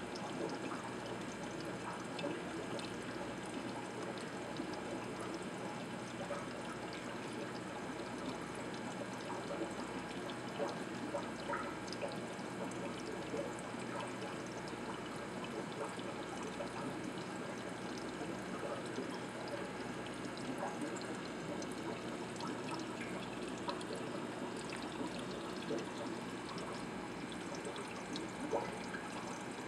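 Aquarium filtration water trickling and bubbling steadily, with many small pops and drips.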